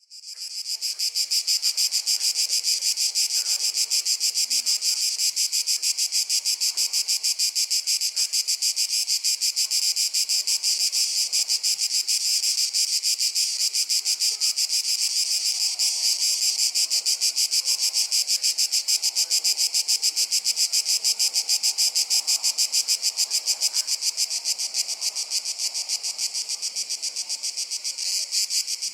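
A chorus of cicadas buzzing loud and unbroken, a rapid, shrill pulsing drone that fades in within the first second.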